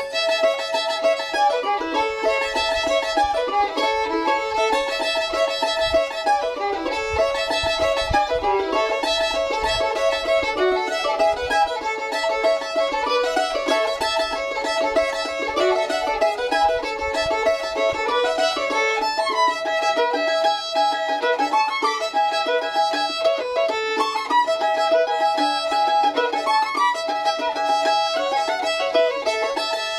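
Fiddle and mandolin playing a tune together, the fiddle's melody the most prominent, with no break.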